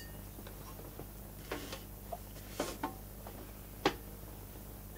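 A handful of light, separate clicks and taps from small parts being handled while a VCR's power-supply screw is taken out and its metal screening can released, over a steady low electrical hum.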